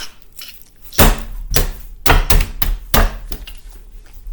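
A run of knocks and clatters, about six of them between one and three and a half seconds in, from a juice box being fetched and handled.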